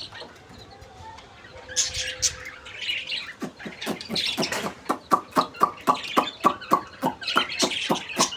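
Pet budgerigars and young chicks chirping, with a quick run of short repeated calls, about four a second, from about halfway in.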